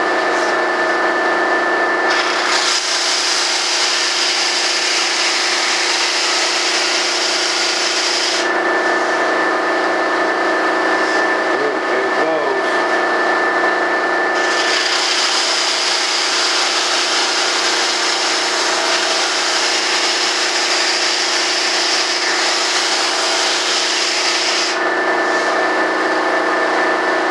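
Bench-top combination belt and disc sander running steadily, with a flat panel pressed against the spinning disc in two long passes. The first pass starts about two seconds in and lasts about six seconds. After a pause of about six seconds with the sander running free, the second pass lasts about ten seconds. Each pass adds a loud, hissing grind over the motor's steady hum.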